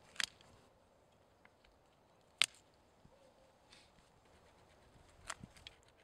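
Sharp snaps of a girdling root being cut out at the base of a young tree's trunk: three separate cracks a couple of seconds apart, the middle one the loudest, with a few small clicks after the last.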